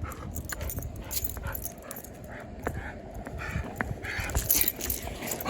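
A dog making a few short whimpering sounds over a low, steady rumble, with scattered small clicks.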